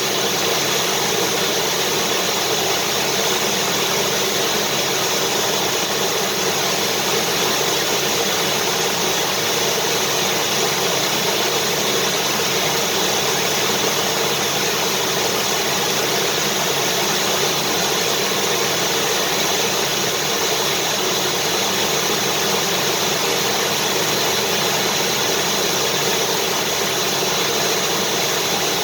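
Vacuum cleaner running steadily, its motor and airflow noise holding an unchanging pitch and level throughout.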